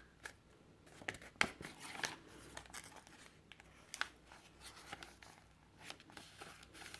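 Paper pages, envelopes and tags of a handmade junk journal being handled and turned: faint, scattered rustles and small crisp paper clicks.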